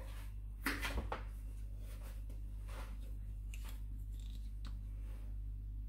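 Small handling noises: a few short, sharp clicks and rustles spaced out over several seconds, the loudest about a second in, over a low steady hum.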